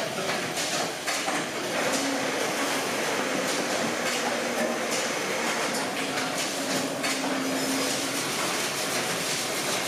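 Paper-tube-making machinery running in a workshop: a steady mechanical clatter with many scattered knocks and clicks.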